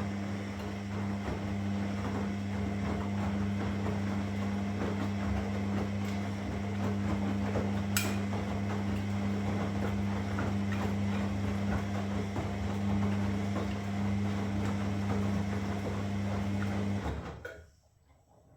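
Washing machine running: a steady motor hum under constant light rattling and clicking, with one sharp click about eight seconds in. It stops abruptly near the end.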